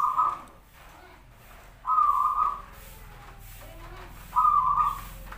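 Zebra dove (perkutut) cooing: three short, clear coos, about two seconds apart.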